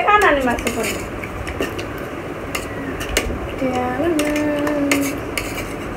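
Spoons clinking and scraping on steel plates during a meal, with scattered sharp clicks. A voice trails off at the start, and a little past halfway someone sings one held note for about a second and a half.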